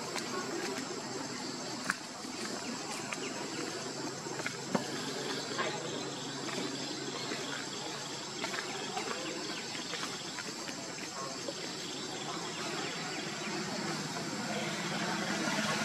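Steady high-pitched drone of insects chirring in the grass, with a few sharp clicks about 2 and 5 seconds in.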